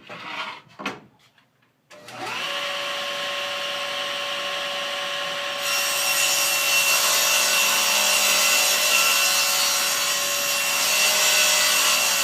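Table saw motor starting and running up to a steady whine, then from about halfway the blade ripping through 3/4 inch plywood along the fence, a loud hissing cut over the whine.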